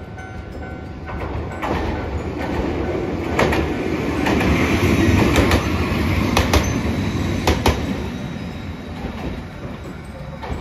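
Hiroden 5000-series Green Mover low-floor tram passing close by: a rumble that swells to its loudest in the middle and then fades, with a handful of sharp clacks as the wheels cross rail joints.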